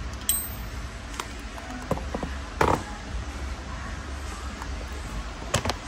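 Scattered metallic clicks and clinks of a torque wrench and hand tools being worked on the water pump bolts and handled: a sharp click with a brief ring about a third of a second in, the loudest clatter about two and a half seconds in, and two quick knocks near the end, over a low steady hum.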